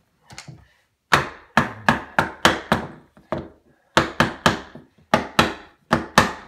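Sharp wooden knocks in quick runs of three to six, about fourteen in all: a hardwood block striking the curved vinyl glazing stop to seat it into a half-round window frame.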